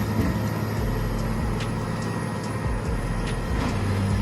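Morbark 3400 XT wood chipper running steadily under its engine's low hum, with a few sharp knocks as wood goes through it.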